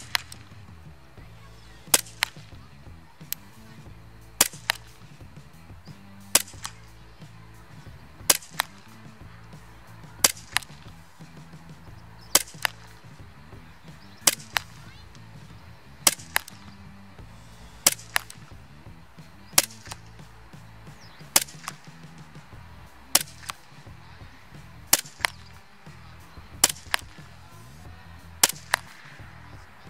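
VFC Walther PPQ M2 gas blowback airsoft pistol firing slow single shots, about one every two seconds. Each sharp crack is followed a split second later by a second click as the BB strikes the cardboard target. Background music with a low beat runs underneath.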